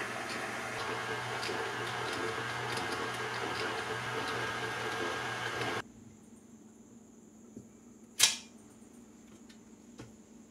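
KitchenAid tilt-head stand mixer's motor running steadily as it mixes naan dough, then switched off abruptly a little past halfway. After it stops comes one sharp knock, the loudest sound, and a few lighter taps as the steel bowl is worked with a spatula.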